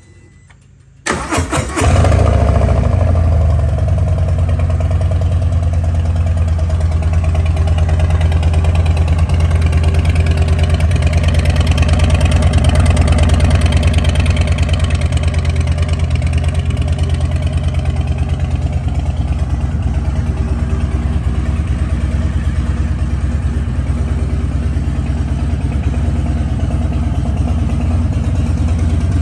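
Harley-Davidson Heritage Classic's Milwaukee-Eight 114 V-twin being started through well broken-in TAB Performance mufflers with Zombie baffles: a moment of starter cranking about a second in, then the engine catches and settles into a steady idle.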